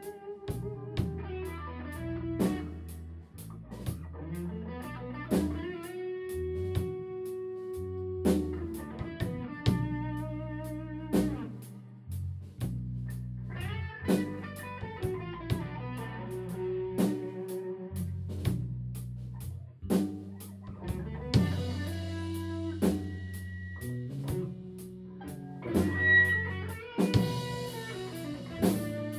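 A blues band plays an instrumental passage: an electric guitar solo with bent notes and vibrato over bass and drums keeping a steady beat.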